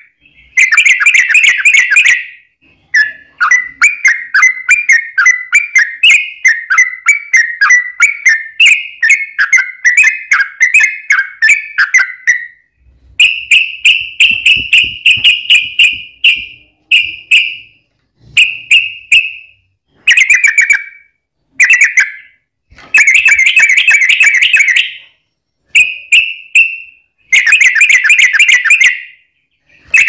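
Yellow-vented bulbuls singing loud, bubbling, chattering phrases in repeated bursts with short gaps. The first half holds a long, rapid run of notes.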